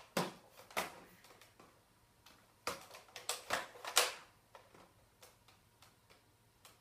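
Sharp plastic clicks and taps from a toy dart sniper rifle being handled and brought up to aim: a few near the start, then a quick cluster of about six a couple of seconds later.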